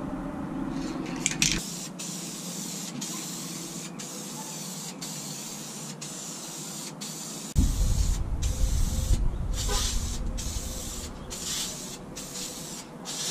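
Aerosol can of Deft semi-gloss clear lacquer wood finish spraying in a steady hiss, broken by many brief pauses between passes. A low rumble joins it from about halfway through.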